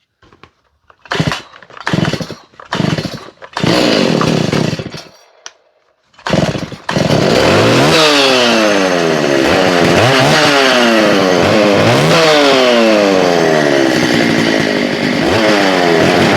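Stihl MS290 two-stroke chainsaw being pull-started: several quick pulls and a short run that dies away, then it catches about seven seconds in and keeps running, revved up and down several times.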